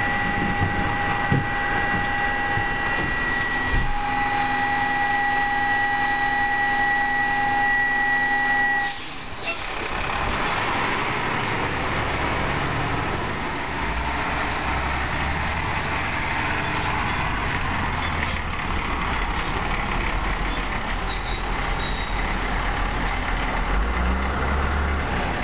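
Peterbilt 320 garbage truck with a Heil 5000 rear-loader body: first a steady high whine from the packer's hydraulics, then a break about nine seconds in. After that the truck's diesel engine runs with a low rumble as the truck moves up the street.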